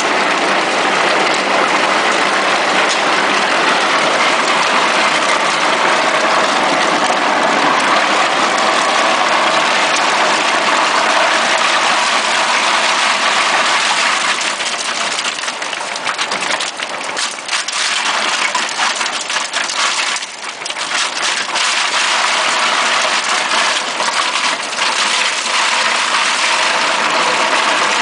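Vogelsang XRipper twin-shaft grinder running under load as it shreds meat, a steady loud mechanical rush mixed with shredded meat falling from its outlet. It eases off slightly for a few seconds past the middle.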